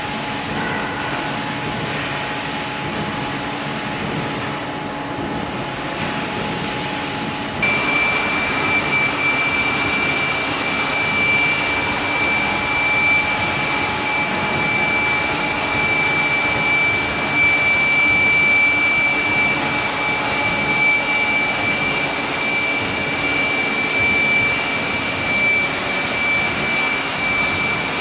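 Bhagwansons CG100 centerless grinder running with a steady whir. About eight seconds in it gets louder and a steady high-pitched whine joins in.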